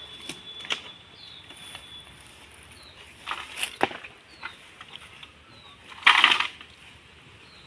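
Footsteps and crunching rustles in dry bamboo-leaf litter as someone walks and handles wood, with a louder crunching rustle about six seconds in and scattered clicks. Faint short high chirps are heard.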